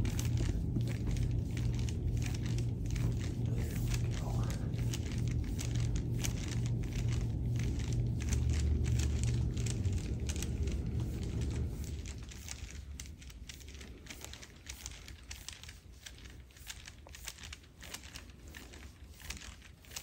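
Crinkling and rubbing from hands working over a patient's back on a treatment table, full of small crackles, over a low steady hum that fades away about twelve seconds in.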